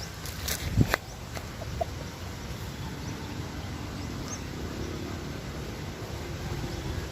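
Farmyard chickens clucking over a steady low rumble, with a few sharp knocks just under a second in.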